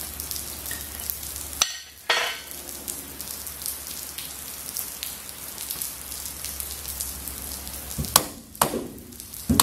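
A steady crackling hiss of background noise, with a few sharp clicks and knocks of metal parts being handled at the engine mount, most of them near the end.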